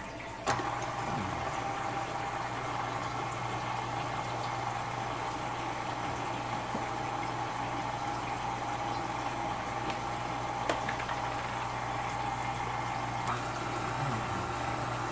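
KitchenAid Artisan stand mixer switched on with a click about half a second in, then its motor running steadily with a hum and a faint whine as the beater mixes bread flour into the proofed yeast mixture.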